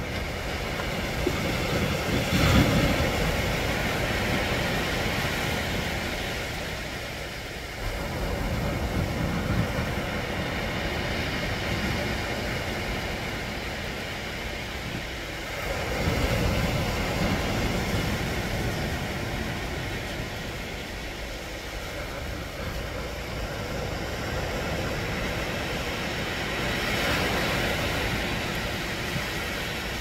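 Sea waves breaking on a shore: a steady rush of surf that swells about four times as each wave comes in and washes up the beach.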